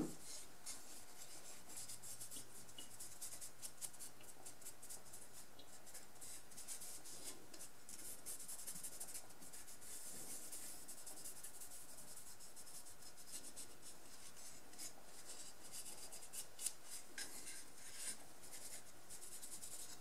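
Cloth rubbing over a wooden saw handle: a faint, dry swishing in many short strokes, with a sharp knock at the very start and a few light knocks near the end.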